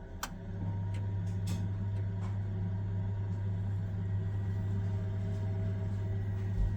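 A few clicks, then a steady low mechanical hum that starts about half a second in and holds even throughout.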